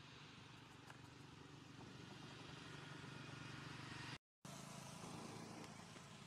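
Faint, steady low engine hum of distant motor traffic, swelling slightly before cutting out for a moment about four seconds in.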